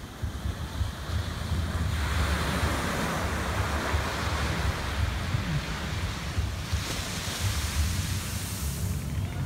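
Small waves breaking on a sandy shore. The rush of surf swells about two seconds in, and a hissing wash of foam comes up the beach near the end, with wind rumbling on the microphone throughout.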